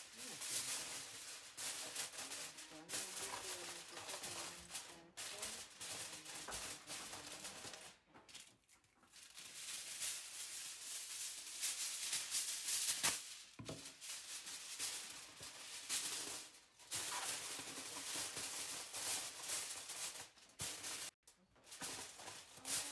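Aluminium foil crinkling and rustling as sheets are pulled off a roll and pressed over a disposable foil pan, in irregular runs with a few short pauses.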